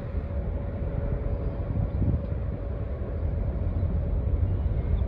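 Low steady rumble with a faint constant hum from the ro-ro ferry Ben-my-Chree's engines as the ship comes slowly into harbour.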